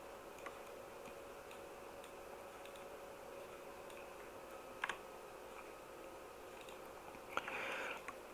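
A few sharp computer mouse clicks over a faint steady hum, with a double click about five seconds in and a short rattling run of clicks near the end.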